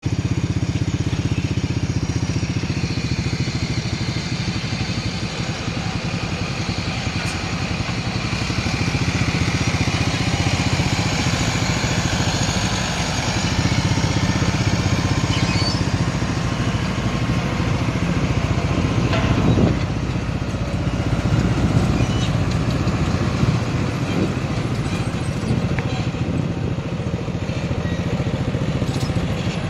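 Pneumatic-tyred road roller's diesel engine running steadily as the machine works the road.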